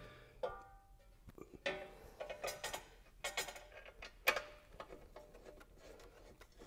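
A metal skid plate clinking and knocking against its mounting bracket under a motorcycle as it is lifted into place and its upper bolt is started by hand. A ringing metallic clank comes about half a second in, then a run of small clicks and knocks, with a sharp knock about four seconds in.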